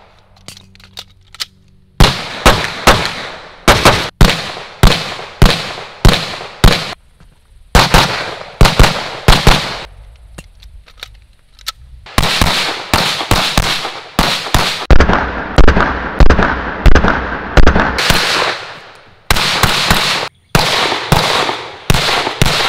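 Strings of rapid 9mm shots from a SIG P320 pistol in a Flux Raider PDW conversion kit. The shots come about two a second at first, then faster and denser in the second half, with a lull of a few seconds in the middle.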